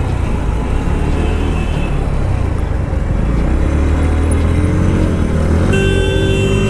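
Bajaj Pulsar NS125's single-cylinder engine running at a steady speed while riding, with steady road and wind noise. Near the end a few steady high tones come in over it.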